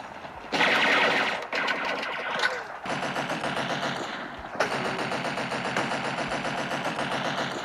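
Sound-effect machine-gun fire in long rapid bursts, with brief breaks about half a second in and twice more in the middle.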